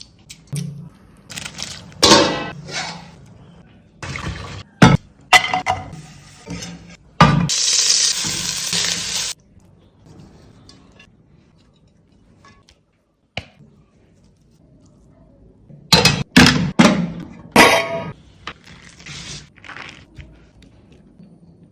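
Kitchen cooking sounds: pots and utensils clinking and knocking in irregular clusters, with a steady rushing noise lasting about two seconds.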